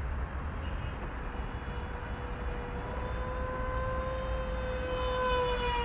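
AtomRC Dolphin flying wing passing overhead: the electric motor and propeller give a steady high whine at about a quarter throttle. The whine grows louder and fuller toward the end, where its pitch begins to dip.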